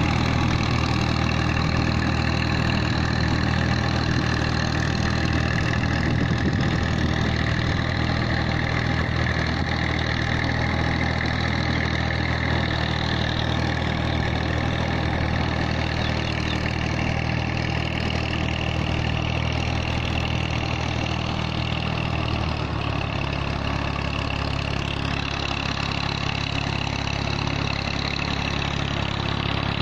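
Massey Ferguson 240 tractor's three-cylinder diesel engine running steadily under load as it pulls a levelling plank through a flooded rice paddy. Its low drone weakens a little about three-quarters of the way through as the tractor draws away.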